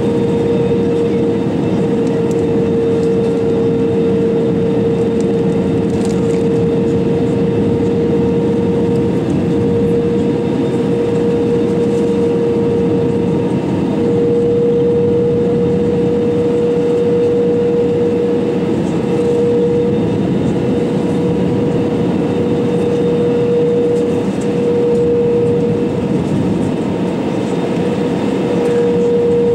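Steady cabin noise inside an Airbus A320-200 airliner: a loud, even rumble of the jet engines and airflow with a steady hum riding on it.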